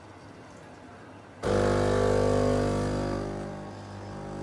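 Automatic coffee machine's pump humming as it brews coffee. It is silent at first, starts again suddenly about a second and a half in, then eases off a little near the end.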